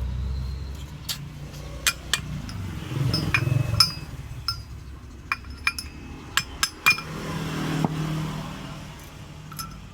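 About a dozen sharp metallic taps and clinks at an irregular pace, each with a brief ringing tone, from metal tools striking metal while a new 6902 bearing is fitted into the scooter's CVT pulley. A low rumble swells under them twice.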